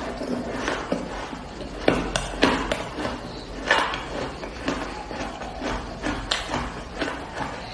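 A person biting and chewing a block of shaved ice: a series of irregular crisp crunches, the loudest about two seconds in and again near four seconds.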